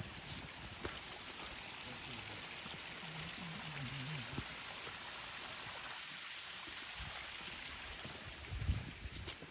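Steady rushing of a small forest stream, with a few footfalls on the muddy dirt trail, one heavier step near the end.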